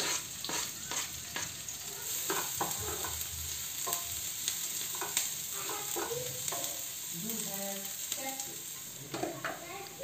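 Chopped onion frying in oil and cumin seeds in a non-stick pan, sizzling steadily, while a spatula stirs it with scattered scrapes and taps against the pan.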